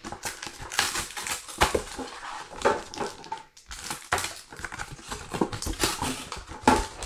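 Plastic blister pack and cardboard backing being pried and torn open by hand: a steady run of crackling, crinkling and clicking.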